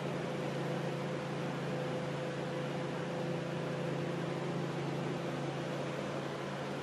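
Steady mechanical hum with a faint high tone over an even hiss.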